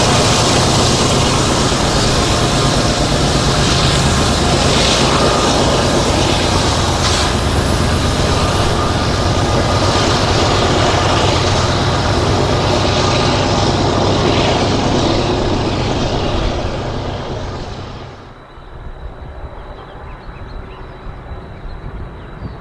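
BNSF GE diesel-electric freight locomotives running hard up the mountain grade, a loud, steady engine noise with rail rumble. About three-quarters of the way through it drops off sharply to a much fainter, distant engine sound.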